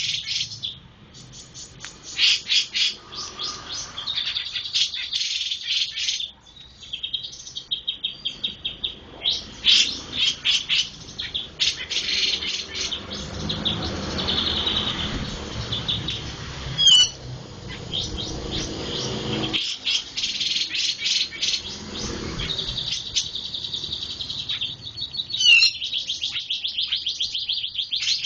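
Jenggot bird (cucak jenggot) singing in 'cabe-cabean' style, copying flowerpecker calls: fast runs of sharp, high ticking notes and trills broken by short pauses, with two brief, louder gliding notes, one past the middle and one near the end.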